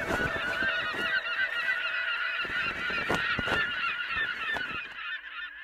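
A flock of birds calling, many short overlapping calls at once, fading out near the end.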